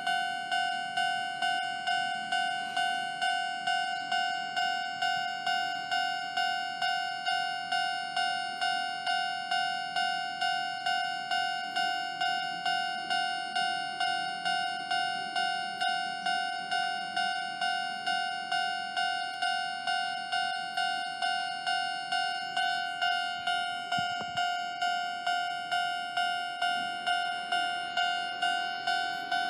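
Japanese railway level-crossing warning bell ringing steadily, a repeated two-tone 'kan-kan' about twice a second: the signal that a train is approaching.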